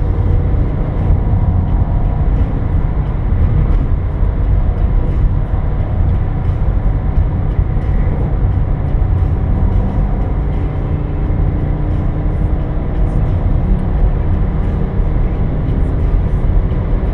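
Subaru WRX's turbocharged flat-four engine pulling steadily at light throttle, heard from inside the cabin over a steady rumble of tyre and road noise.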